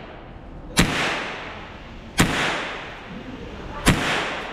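Three gunshots fired at a shooting range, about a second and a half apart, each followed by a short echoing decay.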